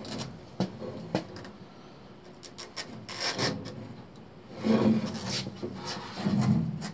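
Handling noise: rubbing and scraping, with two sharp clicks in the first second or so and louder scraping bouts after the middle and near the end.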